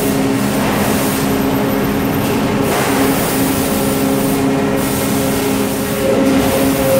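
Steady mechanical drone of running machinery in a large building: a low hum with a couple of steady tones over a wash of noise.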